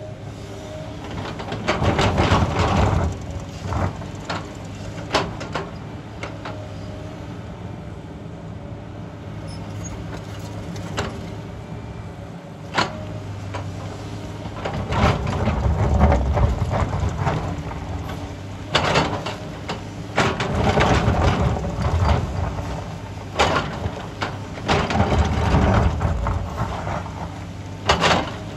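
Sany hydraulic excavator's diesel engine running steadily while its bucket digs and scrapes through broken rock, with repeated bursts of clattering, crashing stone and rock striking the steel bucket, heaviest about two seconds in and from about fifteen seconds on.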